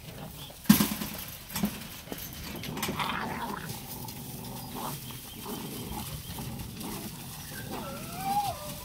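A litter of puppies play-fighting in dry leaves: rustling and scuffling with short yips and growls, a loud sharp yip about a second in, and a brief wavering whine near the end.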